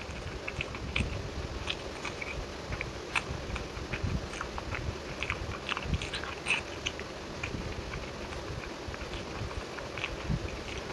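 Close-miked wet chewing and mouth smacking of a person eating chicken and curried rice by hand, a steady run of short irregular clicky, squelchy sounds.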